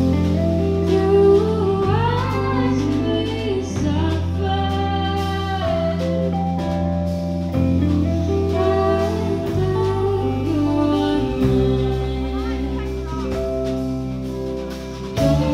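Live band playing: electric guitar chords and bass notes changing every couple of seconds over drums, with a woman singing into a microphone.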